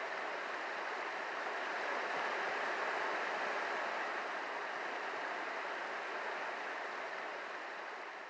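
The Snake River's shallow riffles running over stones: a steady rushing of water that fades out near the end.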